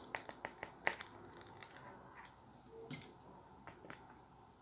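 Faint, irregular small clicks and scratches of a plastic guitar pickguard and its copper foil shielding being handled and picked at by hand.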